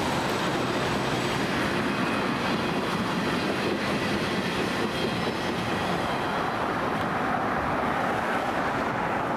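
Freight train rolling along the rails, a steady rumble and rush of steel wheels on track that keeps going, without letting up, as the rear of the train moves off.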